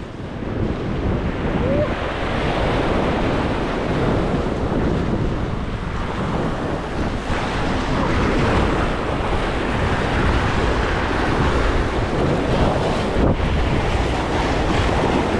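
Sea waves washing against jetty rocks, with wind buffeting the microphone.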